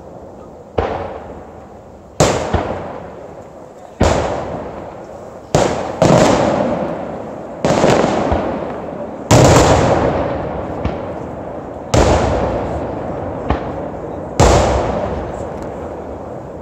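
Aerial firework shells bursting one after another: about nine loud bangs, a second or two apart, each trailing off in a long echoing rumble.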